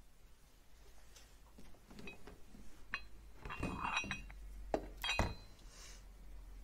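Metal die parts of a manual soap stamping machine clinking and knocking against each other and the metal-topped bench as they are handled: a series of separate light clinks, the busiest in the middle.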